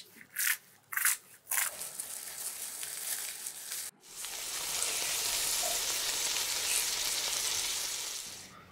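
Kitchen scissors cutting a dry sheet of nori seaweed: three crisp snips in the first couple of seconds, then crackly cutting noise. About four seconds in, this gives way to a batter-coated seaweed roll deep-frying in hot oil, a steady sizzle that fades out near the end.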